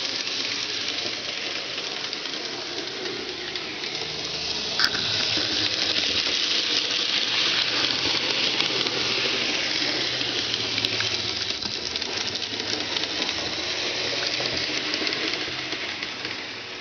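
N-scale model trains running on the track: a steady grainy noise of small wheels on the rails and the locomotives' little electric motors, with two sharp clicks about five and eleven seconds in.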